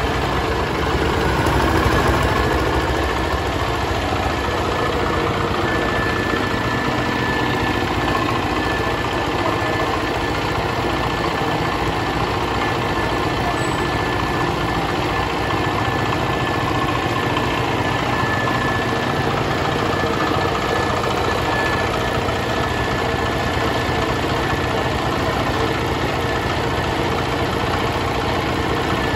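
Single-cylinder Dongfeng diesel engine on an asphalt cutter idling steadily, the blade not cutting, with a thin steady high whine running over it.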